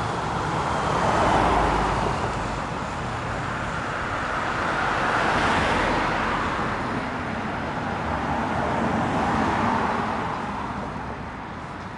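Street traffic: vehicles passing one after another, three swells of tyre and engine noise about four seconds apart, the first the loudest.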